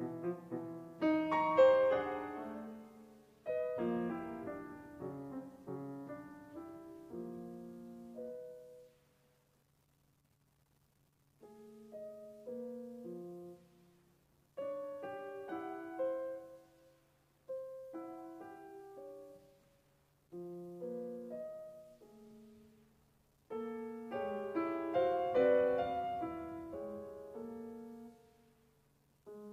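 Concert grand piano played solo: short, separated chords and figures with pauses between them, including a silence of about two seconds near the middle, then a denser, louder passage near the end.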